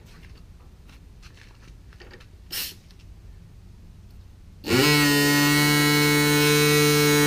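Pneumatic air vibrator switched on about two-thirds of the way through: a short rise in pitch, then a loud, steady buzzing hum. Before it start a few faint clicks and one short burst of noise.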